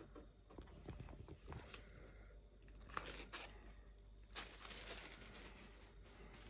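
Faint crinkling and tearing of packaging as a new MacBook Pro is unwrapped and handled, with scattered light clicks. Louder rustles come about three seconds in and again about four and a half seconds in.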